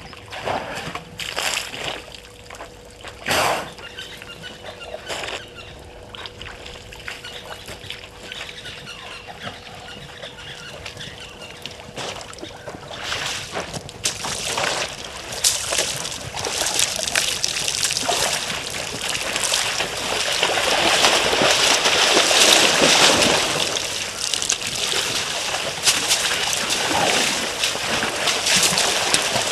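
African elephants wading into a shallow waterhole, the water splashing and sloshing. The splashing builds from about halfway through and is loudest some twenty seconds in, after a few scattered knocks in the quieter first seconds.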